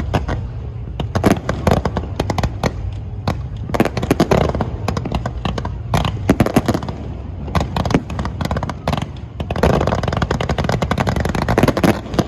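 Fireworks going off in a rapid, irregular barrage of sharp cracks and bangs over a steady low rumble.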